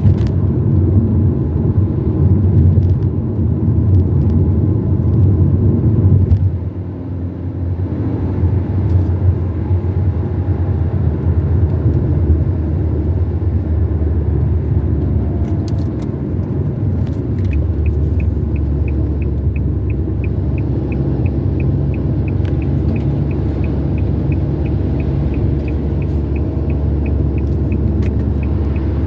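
A car driving along a road: steady engine and tyre rumble. About two-thirds of the way in, a steady ticking starts, about three ticks a second.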